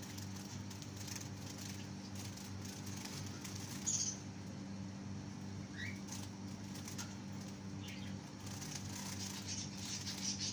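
Zebra finches fluttering their wings as they fly about a cage, with a few short high chirps, one loud call about four seconds in. A steady low hum runs underneath.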